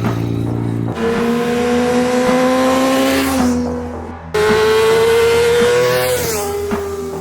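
Honda CBR600 F4i inline-four engine revving high under hard acceleration, its note climbing slowly in pitch. The sound drops away and breaks off about four seconds in, comes back loud and climbing again, then falls in pitch near the end as the bike slows.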